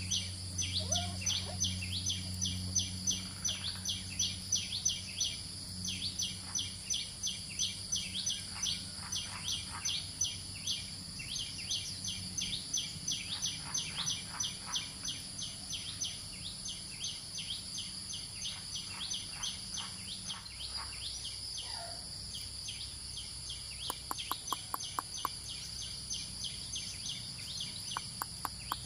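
Outdoor ambience of rapid, steady high-pitched chirping, several chirps a second, with a quick rattle of clicks near the end.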